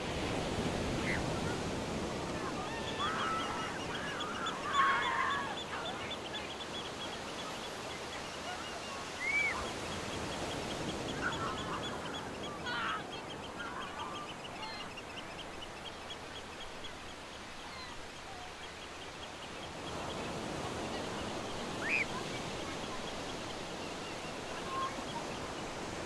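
Laughing gulls giving short calls: a bunch of calls a few seconds in, then single calls scattered through, over steady surf and wind noise.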